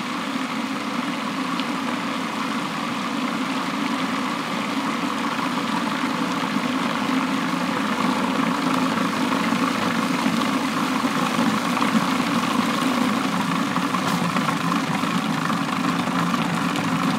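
Food processor motor running steadily under load, its metal S blade churning a stiff tofu and vital wheat gluten dough as it comes together into a ball.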